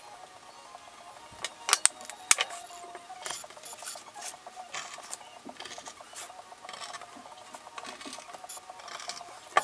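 Knife blade cutting and scraping through thick leather on a wooden bench in a run of short strokes, with a few sharp knocks of tools set down about two seconds in.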